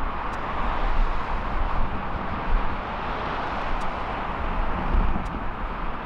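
Airliner jet engines running: a steady rushing noise over a low rumble.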